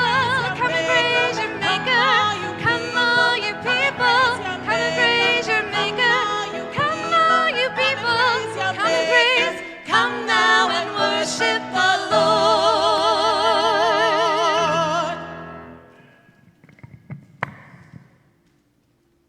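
A classical-style solo voice sings with strong vibrato over sustained keyboard accompaniment. The piece ends on a long held note that dies away about 15 to 16 seconds in, and a single sharp click follows a little later.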